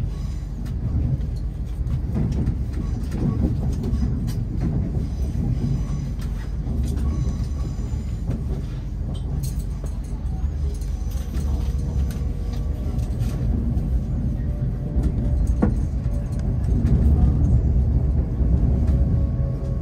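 Cabin rumble of an LNER Azuma passenger train running into a station and slowing, with scattered clicks from the wheels over rail joints and points. A steady whine comes in about halfway through and grows louder near the end.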